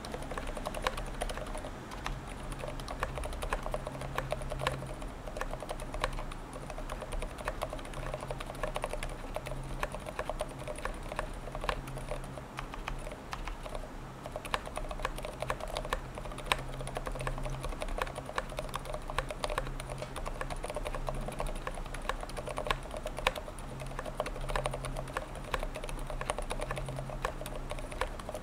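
Continuous typing on a NINJA87 Alu XO aluminium tenkeyless mechanical keyboard fitted with Healios v2 silent linear switches, lubed with 205g0 and TX-filmed, and hybrid stabilizers lubed with 205g0 and dielectric grease: a dense, unbroken run of key clicks.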